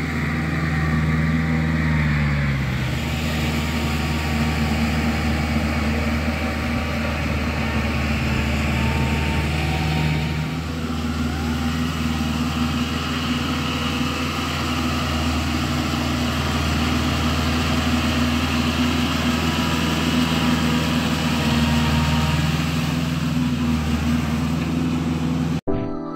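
Compact tractor's diesel engine running steadily under load as it works a flooded paddy field on cage wheels, its pitch dipping briefly about two seconds in. It cuts off suddenly near the end.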